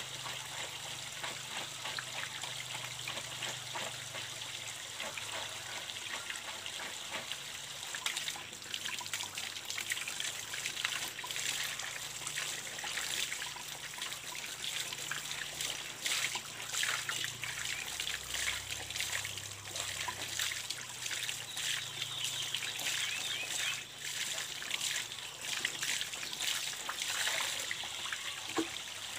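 Water trickling steadily from a PVC pipe, with irregular splashing and sloshing as baby diapers are washed by hand under the flow; the splashing gets busier after the first several seconds.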